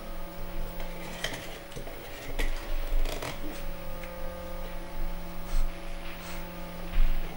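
Hand-held can opener working around the lid of a tin can: irregular metallic clicks and scrapes, busiest in the first half, with a few dull knocks, over a steady electrical hum.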